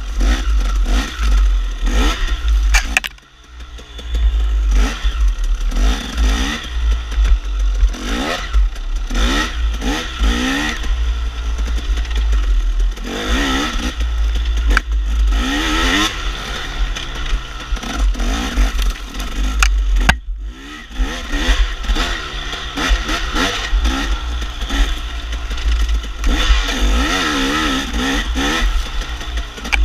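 KTM enduro dirt bike engine revving up and down over and over as the throttle is worked, with a constant low wind rumble on the bike-mounted microphone. The engine drops off briefly about three seconds in and again near twenty seconds.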